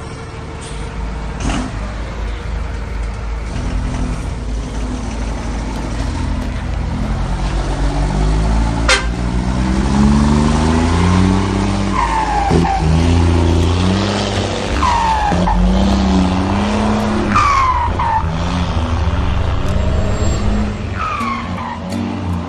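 Car engine with a straight-through exhaust (no muffler) idling with a low rumble, then revved again and again; each of four rev-ups ends with a falling whistle as the throttle is let off. A single sharp crack partway through.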